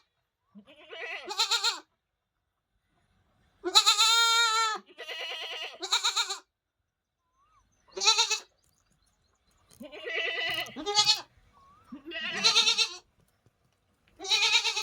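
A nanny goat and her kid bleating back and forth, about seven separate calls with short pauses between them, some loud and lower, others quieter and higher. Several calls waver in pitch.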